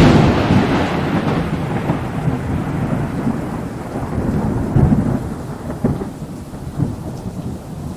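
A sudden loud thunderclap followed by a long rolling rumble that slowly fades, over steady rain.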